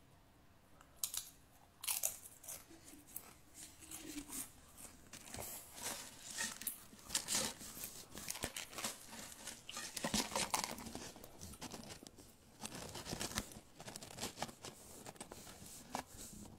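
Close-up chewing of something crunchy, a dense run of irregular crunches and crackles starting about a second in.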